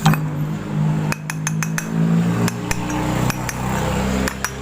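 Sharp metallic taps and clinks as a new needle bearing is worked into the hub of a Honda Vario 125's rear CVT pulley until it seats, over a steady low hum.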